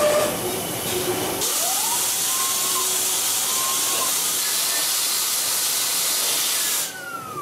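Mazak Integrex i-100 multi-task CNC lathe cutting off a spinning steel workpiece under coolant: a steady loud hiss of coolant spray and cutting, with a faint whine that rises about a second and a half in and falls away near the end as the sound drops.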